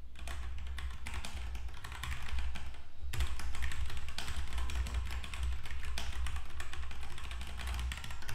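Rapid typing on a computer keyboard, dense clicking keystrokes throughout, over a steady low hum.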